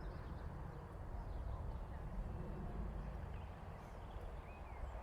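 Outdoor park ambience: a steady low rumble with a few faint bird chirps in the middle and near the end.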